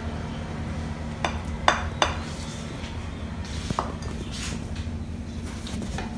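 A plastic spatula scraping and knocking against a coated frying pan and a ceramic plate as stir-fried noodles are dished up, with three sharp clinks between about one and two seconds in.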